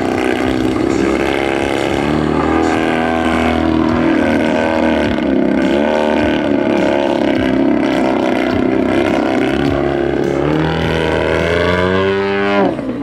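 ZDZ 180 twin-cylinder two-stroke gasoline engine of a giant-scale RC aerobatic plane running in flight, its pitch wavering as the throttle and the plane's distance change. Near the end the pitch climbs steeply and then drops away.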